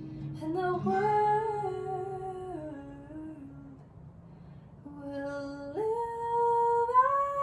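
A woman singing slowly with held notes that step down in pitch. There is a short break about four seconds in, then her voice climbs to a higher sustained note near the end.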